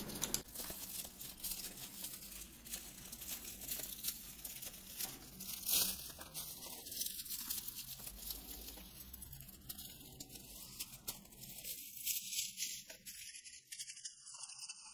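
Dry bast fibres rustling and crackling faintly in the hands as a bundle is twisted and laid around itself into a ring, with one louder crackle about six seconds in.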